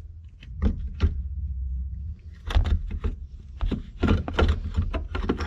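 A string of knocks and clunks from hard parts and tools being handled: two single knocks about a second in, then quick clusters of clatter through the second half, over low rumbling handling noise.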